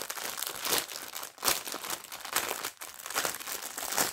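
Packaging crinkling and rustling in irregular bursts as it is handled, while the contents of an embroidery kit are taken out.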